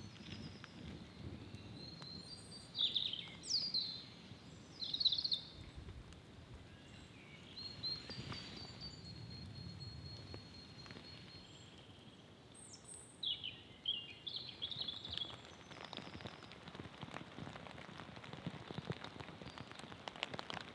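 Birds singing in short chirping phrases, a few calls about three to five seconds in and again around thirteen to fifteen seconds, over a faint patter of light rain and drips in woodland.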